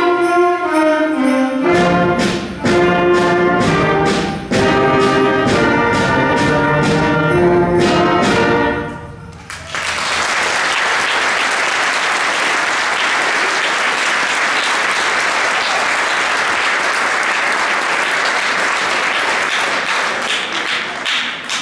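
A seventh-grade concert band of brass and woodwinds playing the final bars of a Christmas tune over a steady beat, stopping about nine seconds in. Audience applause follows and tapers off near the end.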